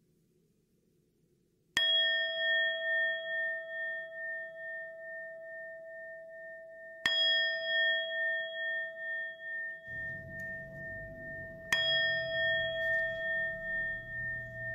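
A struck metal bell rings three times, about five seconds apart. Each strike rings on with a long, wavering tone. A low hum comes in near the end.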